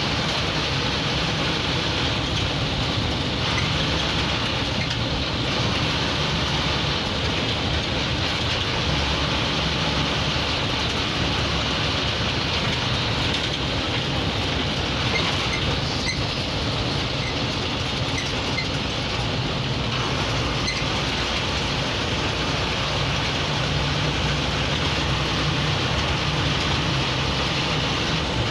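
Inside the cab of a moving MSRTC state transport bus: the engine running steadily under way with continuous road and cabin noise.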